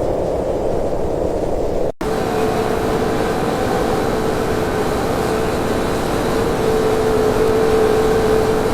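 Steady rumble of vehicle noise, broken by an abrupt cut about two seconds in, after which a steady hum with a held tone runs under the noise.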